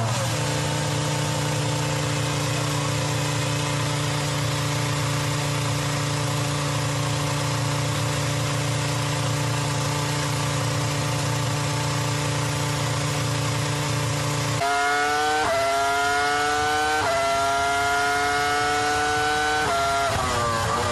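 Ferrari F2004's V10 Formula One engine held at one steady, unchanging note, as on the pit-lane speed limiter. About three-quarters of the way through it opens up and the revs climb in steps through quick upshifts, then the pitch drops briefly near the end.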